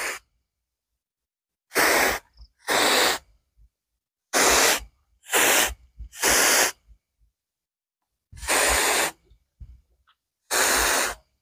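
Insecticide mist sprayer hissing in seven short bursts, each about half a second long, with silence between.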